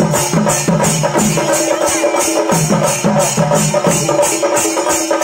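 Chenda drums playing in a Kerala percussion ensemble, with metal hand cymbals clashing in a steady beat about four times a second over the rolling drum strokes.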